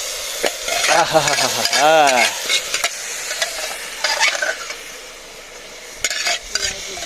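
Soaked, drained rice being stirred and fried in hot oil in a pressure cooker: a steady sizzle with a spoon scraping and clicking against the pot. A short wavering pitched sound near two seconds in is the loudest moment.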